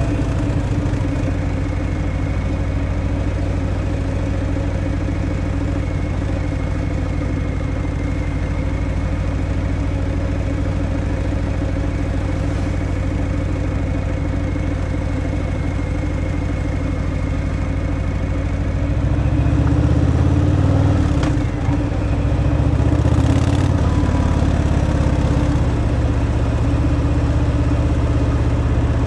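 Harley-Davidson Fat Boy's V-twin engine running through its stock exhaust at a steady cruise. About twenty seconds in it pulls harder and gets louder, dips briefly a moment later, then runs on louder.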